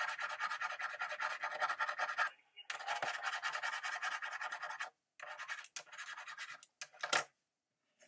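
Rapid scratching strokes, made to pass for scratching the code panel of a scratch-off gift card. There is a long run, a brief pause, a second run, then two shorter runs and a sharp click.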